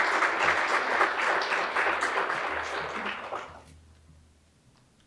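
Audience applauding as a name is called, the clapping dying away about three and a half seconds in.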